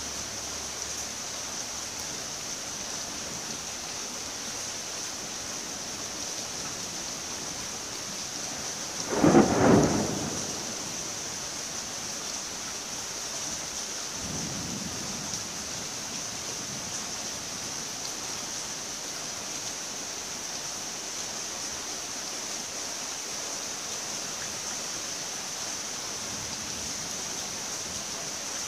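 Steady hiss of rain, with one loud thunderclap about nine seconds in that lasts about a second, and a fainter low rumble of thunder a few seconds after it.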